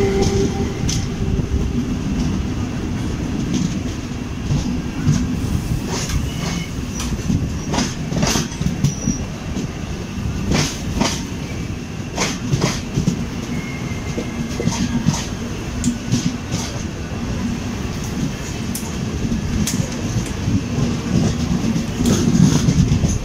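Passenger train running along the track: a steady rumble with wheels clicking over rail joints at irregular intervals, and a few brief wheel squeals.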